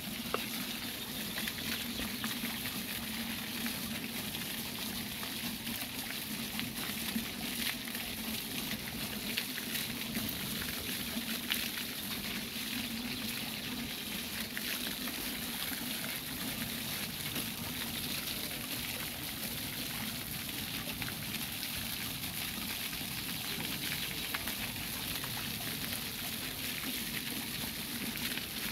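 Ground-level jet fountain: water jets shooting up out of the paving and splashing back onto the wet stones, a steady splashing hiss.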